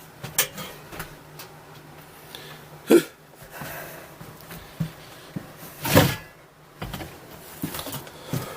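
Scattered knocks and thumps of things being handled, with the loudest about three and six seconds in, over a faint steady low hum.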